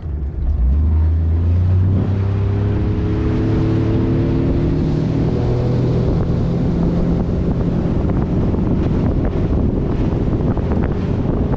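Outboard motor driving a small boat under way: its note jumps up just after the start and then keeps climbing slowly over the next few seconds as it speeds up, with wind noise on the microphone.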